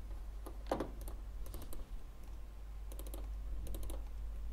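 Computer keyboard keys tapped in short clusters of a few strokes with pauses between, as code is copied, pasted and deleted in an editor. A low steady hum runs underneath.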